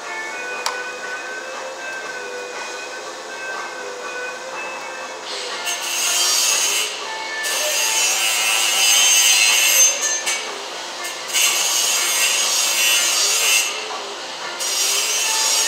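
A harsh scraping noise in four stretches of about two seconds each with short breaks between them, starting about five seconds in. Before it there are faint steady tones.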